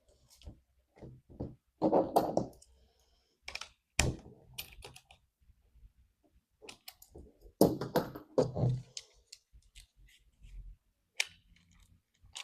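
Irregular clicks, knocks and rattles of a cordless mini chainsaw's plastic and metal parts being handled and fitted together during assembly, with two louder clattering spells about two and eight seconds in.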